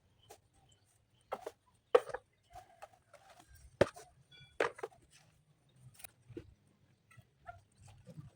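Irregular sharp knocks and clicks, a second or so apart, the loudest about two seconds and about four seconds in.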